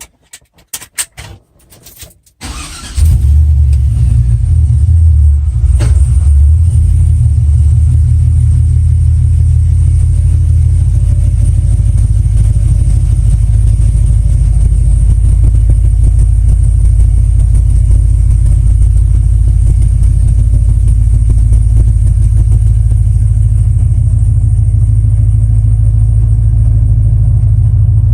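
A couple of seconds of clicks and knocks. Then, about two and a half seconds in, the supercharged 5.3 L V8 of the swapped truck comes in loud and runs steadily with a deep low rumble.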